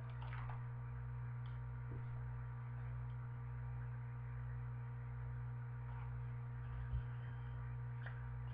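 A steady low electrical hum under faint room tone, with one soft knock about seven seconds in.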